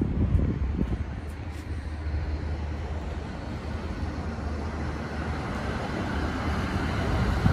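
Road traffic running by, a steady rumble that swells near the end as a vehicle comes closer, with wind buffeting the microphone.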